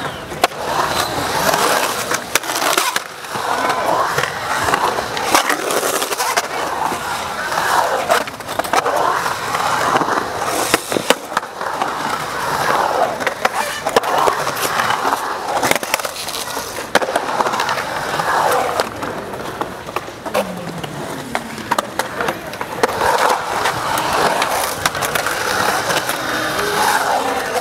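Skateboard wheels rolling and carving on a concrete bowl, with sharp clacks of the board and trucks hitting concrete scattered throughout. Voices shout and talk around the bowl.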